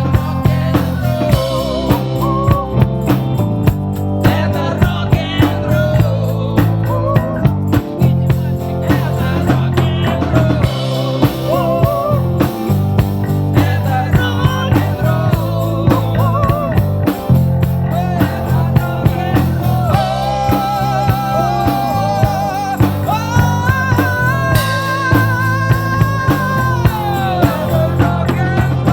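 Rock song played by a band: a steady drum-kit beat with bass and guitars, under a lead melody that bends in pitch and holds a long wavering note near the end.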